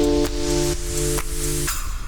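Electronic background music: held chords that change about twice a second, then stop shortly before the end, leaving a steady rushing noise.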